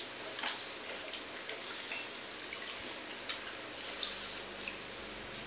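Hands squeezing and mixing water-soaked rice (pakhala) in steel bowls: small wet splashes and squelches with scattered clicks of fingers against the metal, over a steady hiss.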